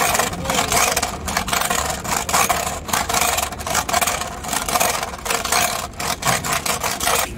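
Tapered roller bearing being turned and scrubbed by hand in a pan of oily wash: a dense, irregular rattle and scrape of the rollers in their cage, with some splashing. It cuts off abruptly just before the end.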